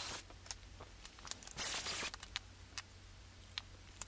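Cordless drill with a stepped bit boring pocket holes through a pocket-hole jig: a burst of drilling just ending as it starts, another short burst of about half a second partway through, with clicks and knocks of the boards and jig being handled in between.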